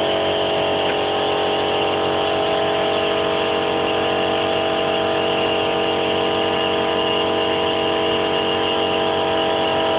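Electric air compressor for a set of air horns running steadily, filling the air tank: an even whir with several steady tones held throughout.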